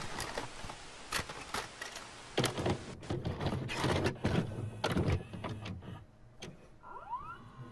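Video cassette recorder mechanism: a run of clicks and clunks over a hiss that fades out after about three seconds, then a short rising whir about seven seconds in.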